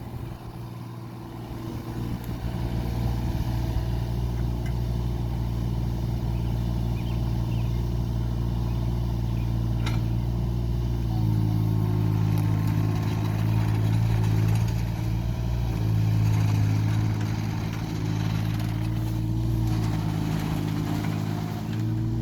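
New Holland compact excavator's diesel engine running steadily. About 11 seconds in its note grows stronger and then shifts up and down several times, as under working load.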